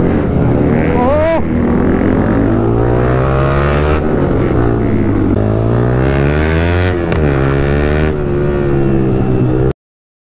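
A group of motorcycles with aftermarket full exhaust systems revving, their pitch rising and falling over a steady low drone. The sound cuts out for about a second near the end.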